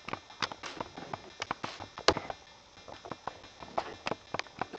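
A string of light, sharp clicks and taps at an uneven pace, a few each second, with a short lull in the middle, dubbed in as footsteps for a walking Lego minifigure.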